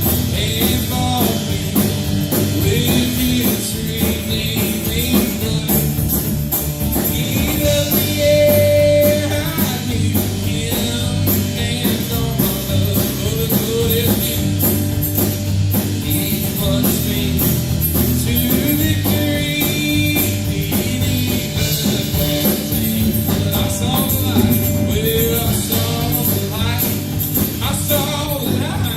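Live worship band playing a rock-style song: drum kit and guitars, with some singing.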